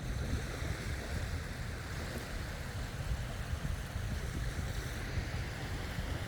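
Ocean waves washing on the shore, with wind buffeting the microphone in uneven gusts.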